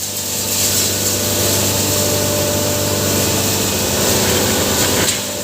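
Maize-grinding hammer mill (pulverizer) running: a steady motor hum under a loud, dense rushing noise, with a single click near the end.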